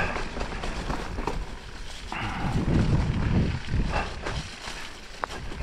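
Mountain bike riding down a wet, muddy forest trail: tyre noise and rattling of the bike over rough ground, with a sharp click about five seconds in.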